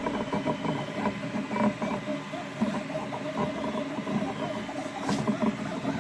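Ultimaker 3D printer running with its print speed turned up to 766%: its stepper motors whine in quick, ever-changing bursts as the print head darts about, over a steady hum.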